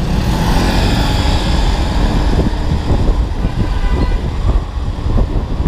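Honda Beat automatic scooter under way: a steady engine drone mixed with heavy wind rumble on the rider's camera microphone.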